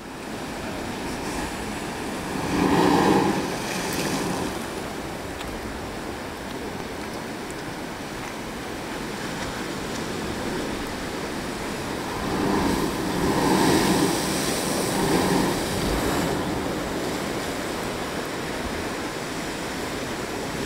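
Ocean surf washing against a lava rock shoreline in a steady rush, swelling louder twice as bigger waves surge in: about three seconds in and again from about twelve to sixteen seconds.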